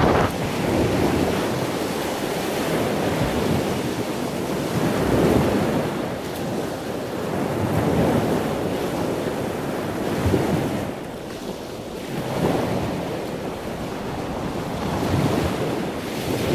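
Surf breaking on the shore, swelling and easing every few seconds, with strong wind buffeting the microphone.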